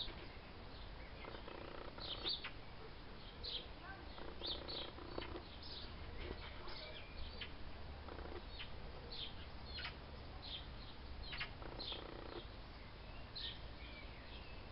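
Small birds chirping in many short, high calls, some sweeping downward, with a few lower, longer calls about one, four and eleven seconds in and a steady low rumble underneath. The top end is cut off, as in a compact camera's built-in microphone recording.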